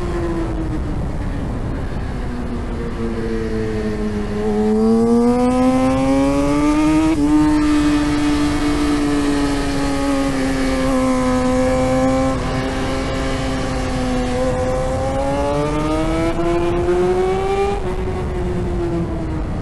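2017 Yamaha R6's inline-four engine at track speed, heard onboard with wind noise. The revs drop for the first few seconds, climb, break briefly at a gear change about seven seconds in, hold steady, then climb again and drop near the end.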